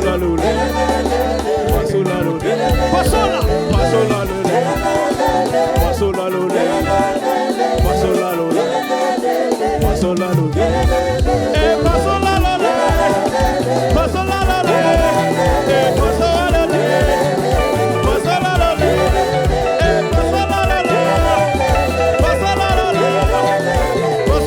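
Live gospel praise music with singing over a band with a bouncing bass line.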